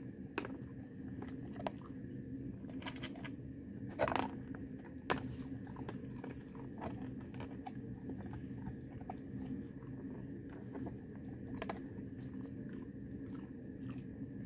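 A dog eating from a bowl: irregular chewing and crunching with small clicks of food against the bowl, and two louder knocks about four and five seconds in.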